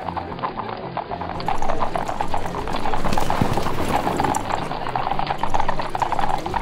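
Horse hooves clip-clopping in quick repeated strikes, a dubbed-in sound effect. They get louder about a second and a half in.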